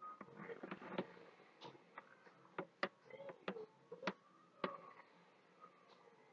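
White plastic spoon clicking and scraping against the sides and bottom of a clear plastic container while swirling thick cold-process soap batter: light, irregular clicks, about a dozen, with faint scraping between them.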